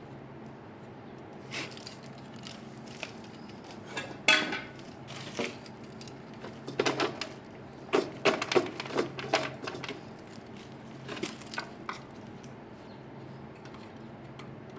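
Metal tools and parts clinking and clanking in irregular bunches, loudest about four seconds in and around eight seconds, over a steady low hum.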